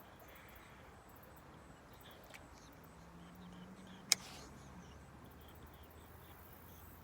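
Faint outdoor ambience with scattered small high chirps and a faint low hum through the middle. One sharp click comes about four seconds in.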